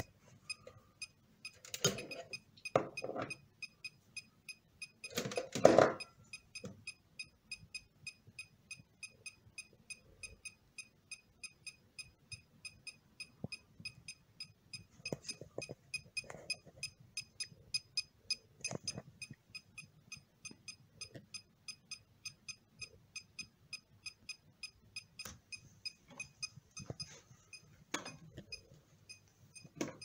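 GQ EMF390 EMF meter's beeper giving short high ticks, about three a second, steadily. A few handling knocks come in the first few seconds, the loudest about six seconds in.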